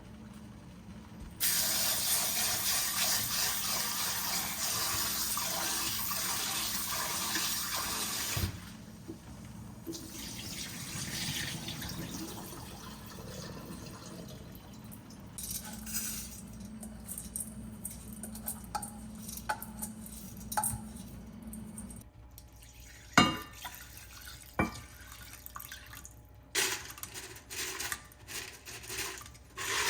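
Kitchen tap running into a sink in a strong stream for several seconds, then running more gently, followed by scattered clinks and knocks of kitchenware being handled.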